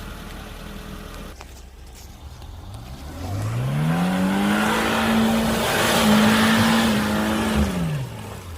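Small off-road 4x4's engine revving up hard, held high for a few seconds, then dropping back near the end, with a broad rushing noise of the tyres churning while it is high.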